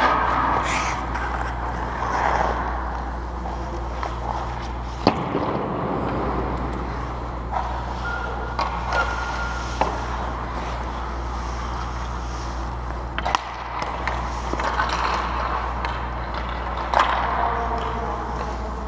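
Ice hockey skates scraping and carving on the ice, with about five sharp cracks of hockey sticks and pucks striking, over a steady low hum.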